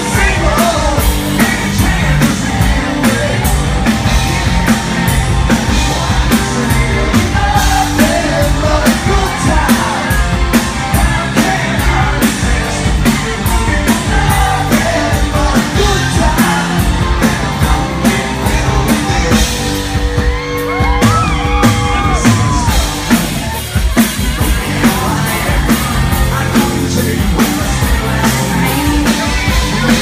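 Live rock band playing loud: a lead singer singing into a microphone over drums, bass guitar and electric guitar.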